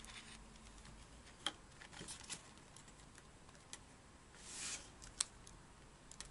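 Faint paper handling: a few soft, sharp clicks and taps as a ruler and fingers press on a folded sheet of paper on the desk, with a brief rustle of the paper being handled for a fold a little after the middle.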